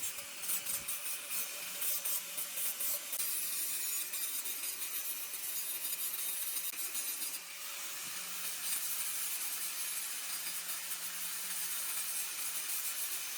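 Stick-welding arc burning steadily on steel pipe, a continuous frying hiss with irregular crackles.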